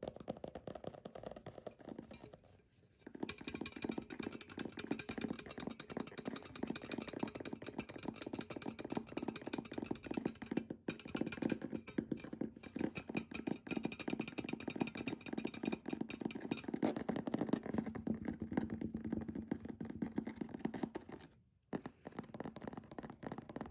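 Very fast fingernail tapping, a dense run of quick clicks that breaks off briefly about two and a half seconds in and again near the end.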